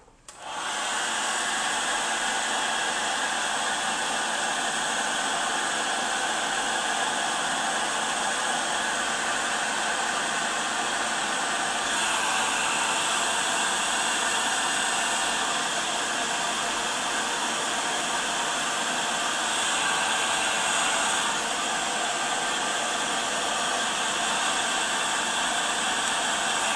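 Black & Decker HG 991 heat gun switching on and running steadily with a hot-air fan rush, shrinking heat-shrink tubing onto a cable end. Its sound grows slightly louder and brighter twice in the middle.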